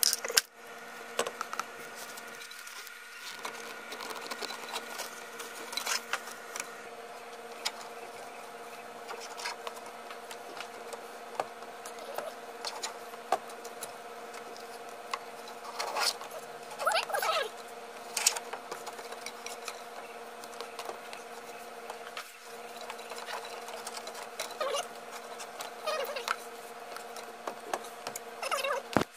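Light clicks, taps and rubbing of a rubber multi-rib drive belt being handled and threaded over engine pulleys by gloved hands, with a few short squeaks, over a steady background hum.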